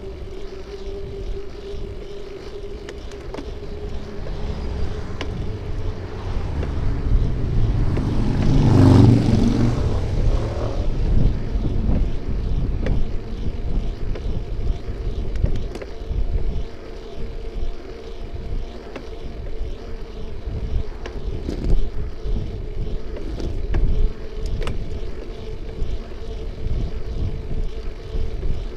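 Ride noise picked up by a bike-mounted camera: steady wind and road rumble with a faint steady whine and small knocks from bumps. A vehicle passes close, swelling to its loudest about nine seconds in and fading away over the next two seconds.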